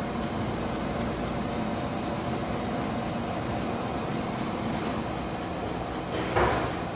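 Selmi tempering machine's refrigeration compressor and condenser fan running with a steady hum. The compressor has just kicked on and is working, its discharge line running hot. A brief rustle or scrape comes about six seconds in.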